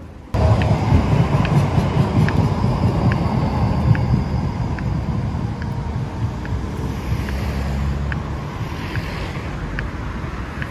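Loud wind buffeting the microphone, a dense low rumble over street traffic noise, starting abruptly. A faint, regular tick sounds through it a little faster than once a second.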